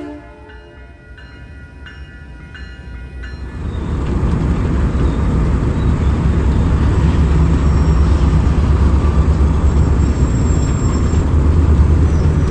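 Level-crossing bell ringing about twice a second, then, about three and a half seconds in, the loud, steady low rumble of a Kawartha Lakes Railway freight train hauling empty hopper cars.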